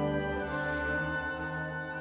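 Orchestral background music with long held chords, slowly fading out.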